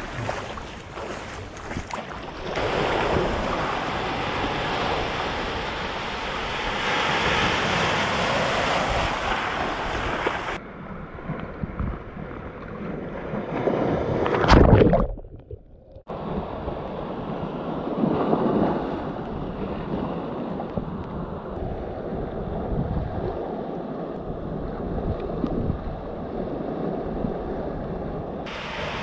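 Surf washing over a shallow rocky reef, with wind buffeting the microphone. About halfway through, a wave breaks right over the camera with a loud splash, and the sound muffles and drops out for about a second before the surf wash returns.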